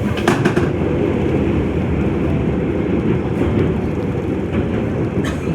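Running noise inside a moving train carriage: a steady low rumble, with a few sharp clicks just after the start and another near the end.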